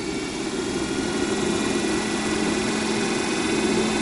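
Heng's Vortex II RV roof vent fan running on medium speed: a steady motor-and-blade hum with faint higher tones, growing a little louder over the first couple of seconds as the fan speeds up, then holding steady.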